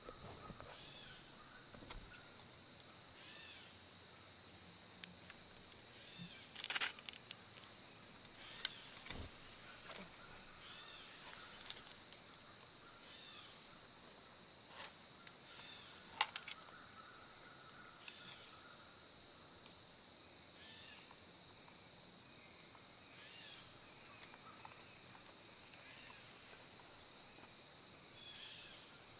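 Steady high-pitched insect chorus, with scattered sharp snaps and rustles throughout; the loudest come about seven and sixteen seconds in.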